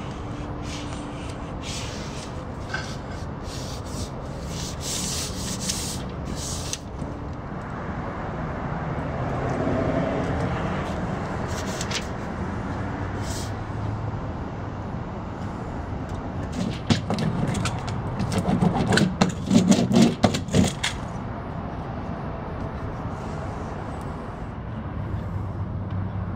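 Self-adhered flashing tape and housewrap being rubbed and pressed down by hand and with a hand tool: papery rubbing and scraping with scattered sharp clicks. A quick run of louder clicks and knocks comes about two-thirds of the way through.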